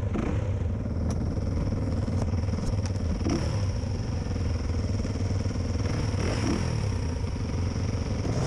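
Yamaha WR250 trail bike's single-cylinder engine running steadily on a slow climb up a rocky track, with other dirt bikes running just ahead. A few faint clicks come through.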